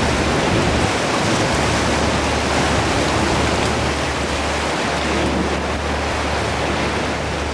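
Steady rush of turbulent water pouring out through a dam's gates into the tailwater, with a steady low hum underneath.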